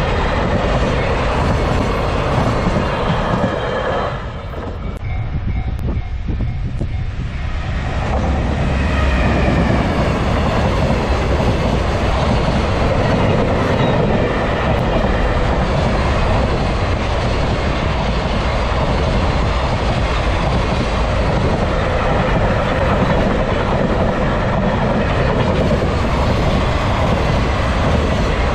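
Freight train hauled by an EF210 electric locomotive rolling past a level crossing, its wagons' wheels clattering steadily over the rails. The noise drops for a few seconds about four seconds in, then picks up again and carries on.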